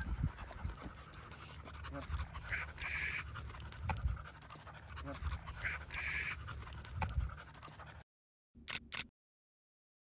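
Hunting dog panting close to the microphone, with a few low thumps. The sound cuts out about eight seconds in, apart from one short burst a second later.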